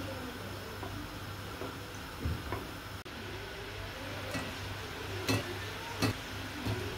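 Batter-coated quail eggs deep-frying in a pan of hot oil, a steady sizzle, with tongs clicking and tapping several times against the pan and a stainless steel colander as fried pieces are lifted out.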